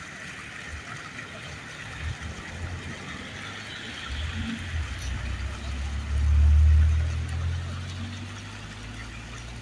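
A car drives past, its low engine rumble swelling to a peak about two-thirds of the way through and then fading, over the steady splashing of a fountain's jets.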